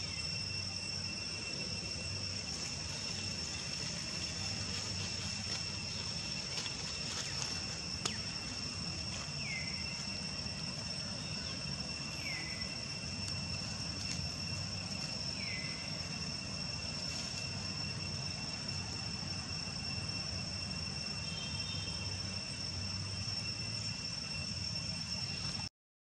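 Steady, high-pitched insect drone outdoors among trees, holding two unchanging tones. Three short falling chirps sound about three seconds apart around the middle, and the sound cuts out for a moment just before the end.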